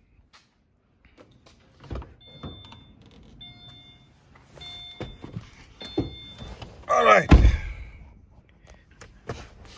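Subaru Forester's warning chime beeping at a steady pace, about four times, while the driver's door is open and the car is being got into after the battery was reconnected. There are door and seat clicks and knocks, and a loud thump about seven seconds in.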